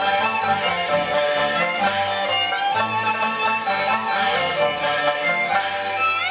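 Cantonese opera accompaniment ensemble playing an instrumental passage, a bowed-string melody over steady lower notes, with no singing.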